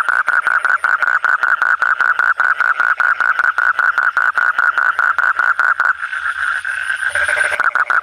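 Asian common toad (Duttaphrynus melanostictus) giving its long trilling call, a fast, even string of pulses, the male's mating call with the throat sac inflated. About six seconds in the trill breaks off into a rougher, less pulsed sound for a second or so, then resumes.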